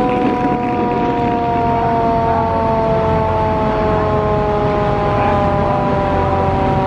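Federal Signal Q2B electro-mechanical fire truck siren winding down, its wail falling slowly and steadily in pitch.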